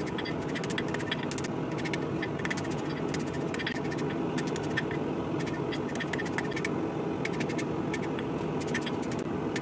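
Hand hammer striking a hot rebar-steel blade on an anvil, sharp metallic blows, often two or three in quick succession, about once a second, while the wavy flamberge edge is forged in. A steady low roar runs underneath.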